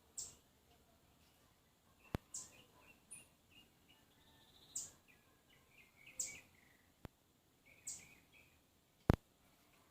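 Small songbirds giving thin, high calls every second or two, with softer chirps between them, and three sharp clicks.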